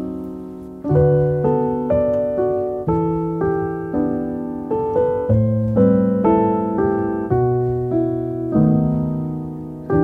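Background piano music: a slow line of notes and chords struck about twice a second, each ringing and fading before the next.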